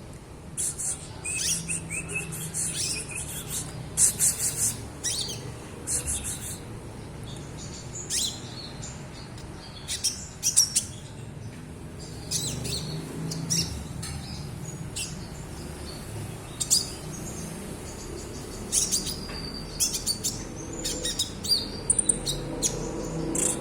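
A young konin (kolibri ninja) in green juvenile plumage practising its song: scattered runs of short, high twittering chirps, the soft chatter of a bird still learning to sing.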